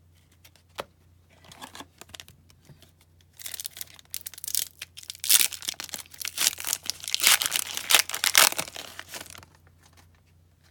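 A foil wrapper on an O-Pee-Chee Coast to Coast hockey card pack being torn open and crinkled by hand. A few light rustles come first, then loud crinkling and tearing from about three seconds in until shortly before the end.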